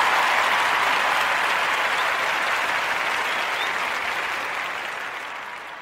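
Applause, an even clapping noise that fades away over the last couple of seconds.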